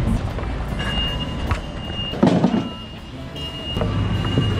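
Hand pallet jack rolling across a concrete slab, its wheels rumbling, with a clatter a little past two seconds in and a thin high whine that comes and goes.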